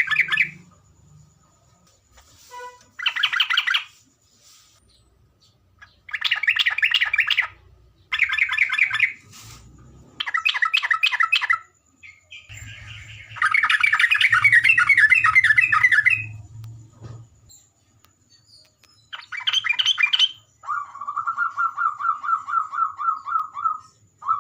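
Yellow-vented bulbul (trucukan) singing: bubbly, chattering phrases of one to three seconds repeated with short pauses, ending in a long run of even notes at about five a second.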